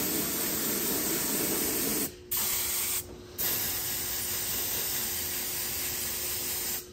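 A compressed-air spray gun, fed at 40 PSI, hisses as it sprays a thin coat of polyvinyl alcohol over fiberglass patches. It comes in three trigger pulls, with short breaks about two and three seconds in, and the last and longest spray stops near the end.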